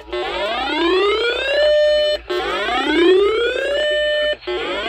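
Weather alert radio's siren alarm sounding for a severe thunderstorm warning. A rising whoop climbs for about a second and a half, holds briefly on a steady tone and cuts off, repeating about every two seconds.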